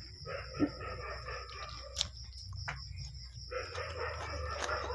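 Close-miked chewing and slurping of chow mein noodles eaten by hand, with irregular wet mouth noises and a few sharp clicks. A steady high-pitched whine runs underneath.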